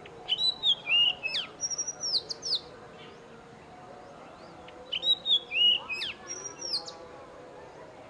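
Oriental magpie robin singing: two short phrases of varied whistled notes that slide up and down, the second a few seconds after the first and much like it.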